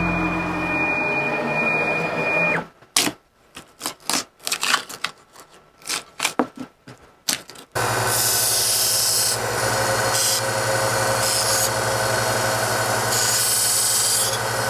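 Small bench belt sander running steadily, with a hiss that swells and drops as a plywood piece is pressed against the belt. Before it starts there are several seconds of scattered knocks and clicks.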